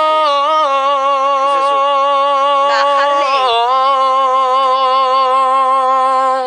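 A singer's voice holding a long sung note, then sliding down to a second, lower held note about three and a half seconds in, wavering slightly. The voice breaks off at the very end.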